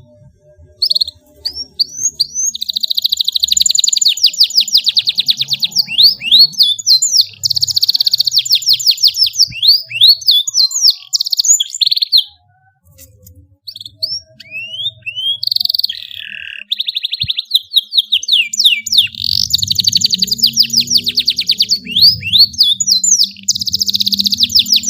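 Domestic canary singing a long song of fast trills and rising whistles, with a short break about halfway through.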